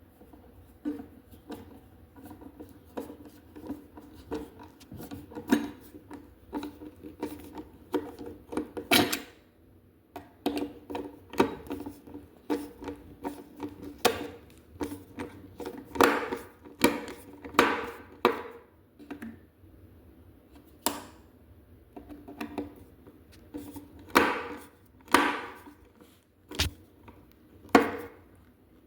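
A screw being driven by hand with a screwdriver into a cabinet board: a long run of irregular clicks and short scraping, creaking turns.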